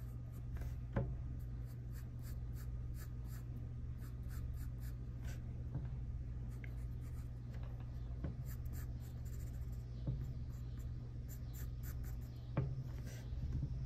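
2B graphite pencil sketching on paper: many short scratching strokes, over a steady low hum.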